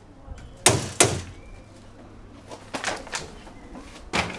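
Knocks and thuds of a large plastic wheelie bin and its lid being handled as the rubbish is put out. There are two loud knocks close together under a second in, a few softer knocks in the middle, and another loud knock near the end.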